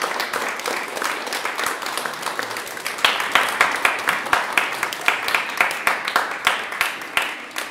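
Audience applauding. From about three seconds in, one set of loud, evenly paced claps stands out at roughly four a second, and the applause thins out near the end.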